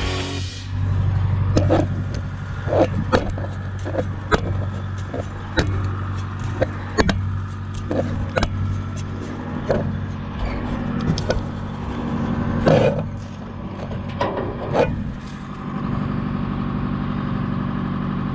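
Farm machinery engine running steadily, with irregular sharp knocks and clatters from the equipment rattling.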